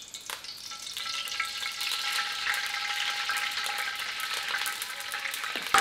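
Cooking oil poured in a thin stream into a hot non-stick wok, sizzling with a steady hiss and light crackles.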